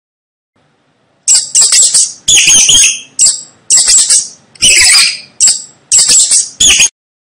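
Mouse squeaking: a rapid series of loud, high-pitched squeaks in short clusters, starting about a second in.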